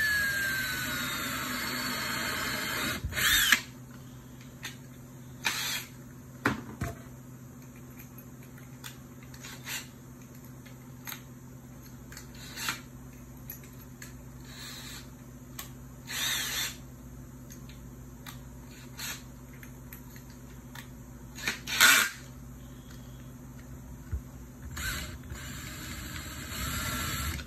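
Power drill running while it bores a hole through the bottom of a thin clear plastic cup, its whine sliding down in pitch, stopping about three and a half seconds in. Short, scattered sounds follow, the loudest about 22 seconds in.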